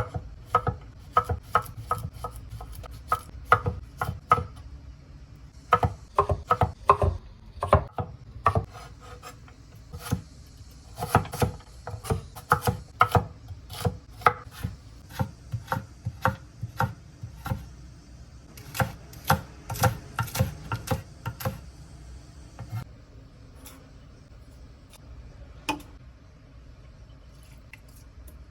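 Knife chopping on a cutting board in runs of quick, even strokes, about three a second, with short pauses between runs. It stops about three quarters of the way through, followed by one lone knock.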